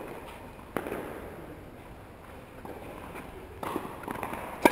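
Tennis ball impacts from play on court: a sharp pop about a second in, a few lighter knocks later, and the loudest crack just before the end.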